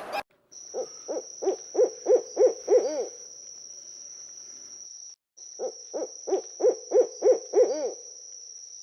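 An owl hooting: two runs of about eight short hoots each, the hoots coming closer together through each run. A faint steady high-pitched whine lies behind them.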